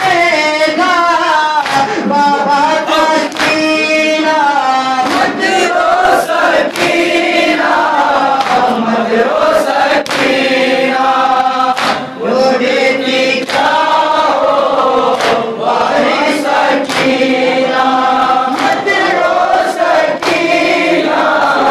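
Young male voices reciting a noha, a Shia lament, in unison into a microphone, with other voices joining in. Chest-beating slaps (matam) recur through the chanting.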